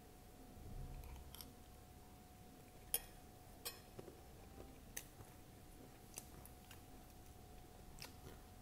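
Close-miked eating of poha topped with crunchy sev: soft chewing with scattered crisp crunches and mouth clicks, the loudest about three seconds in, over a faint steady hum.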